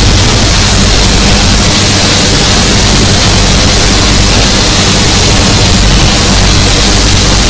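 Harsh noise music: a loud, unbroken wall of hiss and static over a low droning hum.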